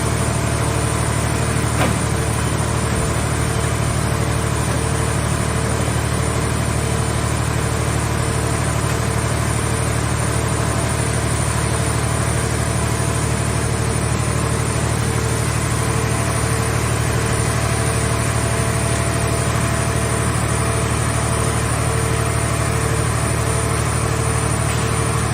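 Scrap car baler's power unit running steadily at idle: an even low mechanical drone with a faint regular pulse over it.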